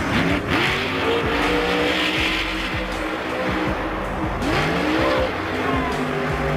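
Monster truck engine revving hard, its pitch rising and falling several times, over background music.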